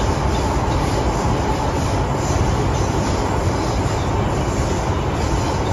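MTR M-Train (Metro-Cammell electric multiple unit) running on the line, heard from inside the passenger car: a steady, loud rumble of wheels and running gear.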